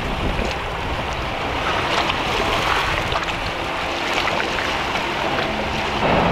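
Outboard motor of a small open fishing boat running as the boat pulls away from shore, over waves washing at the water's edge and wind on the microphone. About six seconds in, it changes to the steady hum of a car driving.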